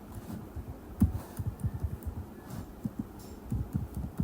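Computer keyboard typing, picked up by the desk microphone as short, soft, low thumps that come irregularly, several a second, in two runs about a second in and near the end.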